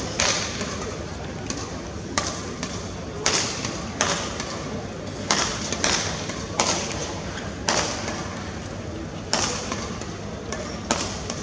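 Badminton rackets striking the shuttlecock in a rally: a string of sharp hits about once a second, each ringing briefly.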